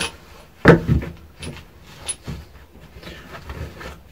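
Handling noise from a BMX tool-kit pouch and the metal tools inside: one loud knock a little under a second in, then several lighter knocks and clicks as the tools are moved.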